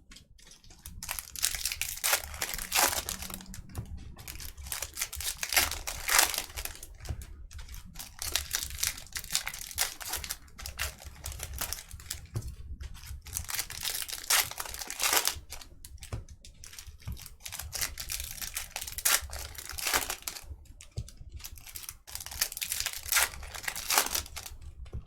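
Wrapping of a 2019 Bowman Chrome hobby box of baseball cards and its packs crinkling and tearing as they are opened, an irregular run of crackles and rustles.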